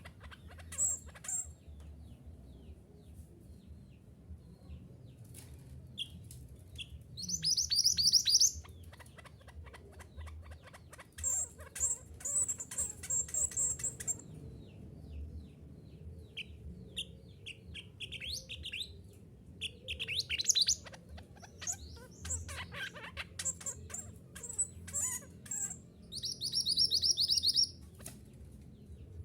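Minivet (mantenan gunung) singing: bouts of high, rapid chirping trills with shorter scattered call notes between them, over a faint low hum.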